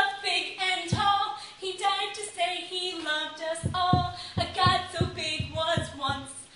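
A girl singing a children's song unaccompanied, a steady run of sung lines, with a few short low thumps in the second half.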